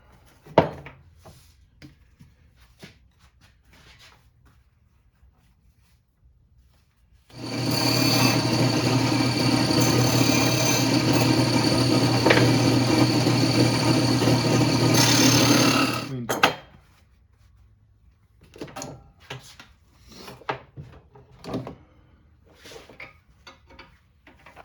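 An electric bench sander starts about seven seconds in, runs steadily for about nine seconds with a constant hum and a high whine, then cuts off, most likely smoothing the freshly bent aluminium brackets. Scattered clicks and knocks of handling the workpiece come before and after.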